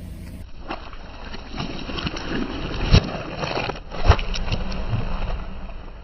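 Car tyre rolling over and crushing objects: crackling and crunching that builds, with two loud sharp cracks about three and four seconds in.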